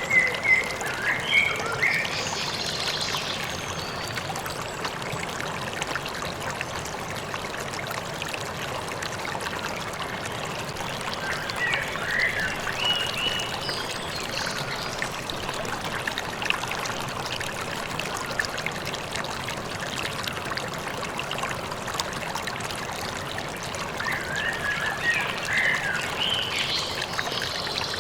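A river or stream flowing steadily, with three spells of bird chirping over it: near the start, in the middle and near the end.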